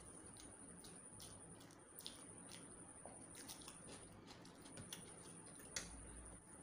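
Faint wet clicks and squishes of eating rice and chicken curry by hand: chewing and lip smacks, and fingers mashing rice on the plate, with one sharper click near the end.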